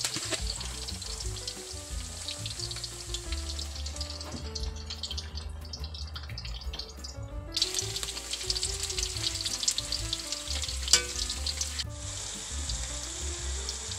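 Sliced tindok bananas deep-frying in hot oil in an iron wok: a steady crackling sizzle. The sizzle thins out for a few seconds midway and comes back suddenly, with one sharp crack about eleven seconds in. Faint background music plays under it.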